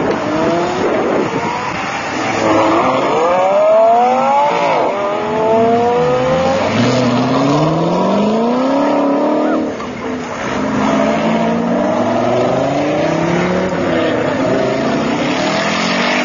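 A procession of supercars, among them a Lamborghini Gallardo and a Dodge Viper, accelerating hard away from a junction one after another. Their engines rev up with rising pitch, drop back at each gear change and climb again as each car pulls away.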